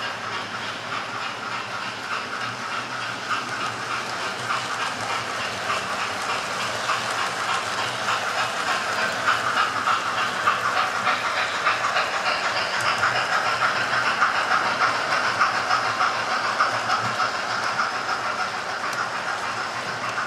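Model railway trains running on the layout, with a steady whirr of motors and a rapid clicking of wheels over the track. The sound grows louder around the middle as a model steam locomotive and its coaches pass close by, then eases off again.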